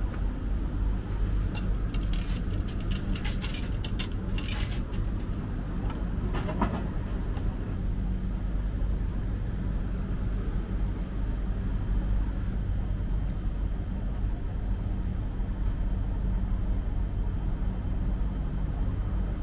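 Metallic clinks of coins going into a retro hamburger vending machine for a few seconds, then a single click with a short ring, over a steady low electrical hum from the machines while the burger heats.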